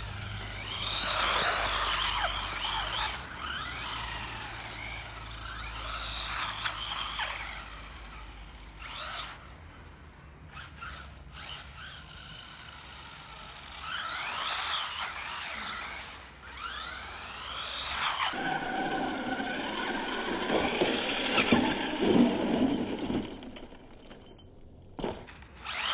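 WLtoys A979-B electric RC monster truck driving on concrete paving: its brushed electric motor whines, swooping up and down in pitch several times as it speeds up and slows. Near the end the truck crashes and tumbles, with a loud stretch of scraping and clattering.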